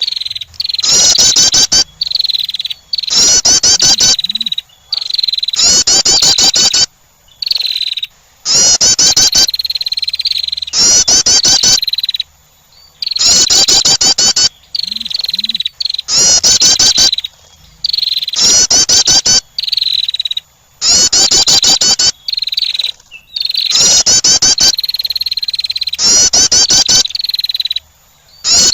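Female wren calling in loud, repeated phrases about every two seconds: a rapid burst of high chattering notes running into a steady high trill, as a bird-attracting call.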